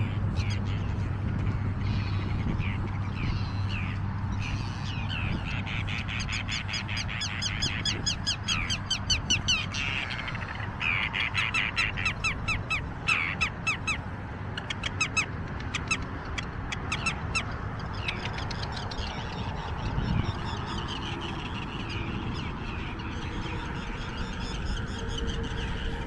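A flock of terns calling, with fast chattering runs of repeated calls through the middle stretch over a steady low rumble.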